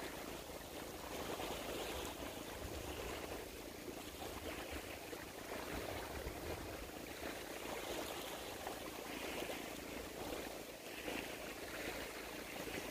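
Steady outdoor ambience of wind and lapping water, swelling and easing every few seconds.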